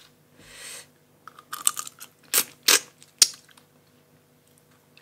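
Tableware being handled: a quick run of clicks, two louder clatters, and a single sharp click about three seconds in.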